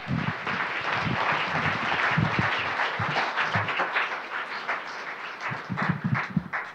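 Audience applauding, thinning out near the end into a few scattered claps.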